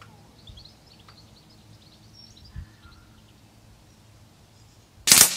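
Full-power (FAC) PCP air rifle, fitted with a silencer, firing one shot near the end: a single sharp report that dies away quickly. Birds chirp faintly throughout, and there is a soft low knock about halfway.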